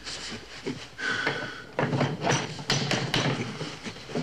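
A run of sharp, irregular taps and knocks, starting about two seconds in, as hard objects of the home-made laboratory apparatus are handled and set in place.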